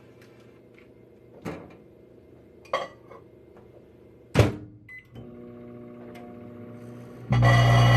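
Microwave oven being loaded and shut, with a few knocks and a solid thud of the door, then a short keypad beep and the oven starting to run with a steady hum. Near the end a much louder steady drone sets in.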